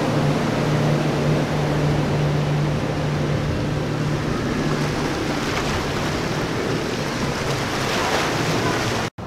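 Triple outboard motors on a Conch 33 center-console boat running at speed, a steady low engine drone that fades after about five seconds as the boat heads away. Hull spray, surf and wind on the microphone make a loud rushing noise throughout.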